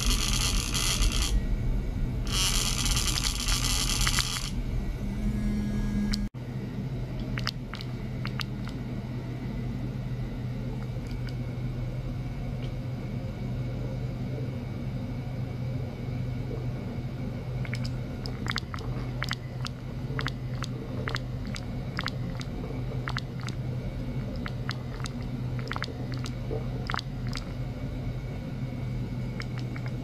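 Steady low electrical hum with a faint rumble and scattered short crackling clicks, more of them in the second half. It follows two bursts of loud hiss in the first few seconds and a sudden cut about six seconds in.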